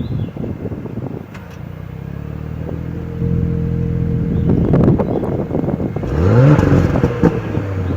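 2017 Audi S5's V6 idling on its stock exhaust, then revved once about six seconds in, the pitch rising and dropping back. A few sharp exhaust pops and crackles come just before and just after the rev.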